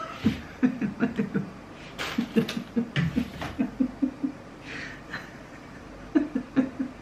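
A woman laughing in a long run of short, quick bursts, drawing a breath about five seconds in, then laughing again near the end.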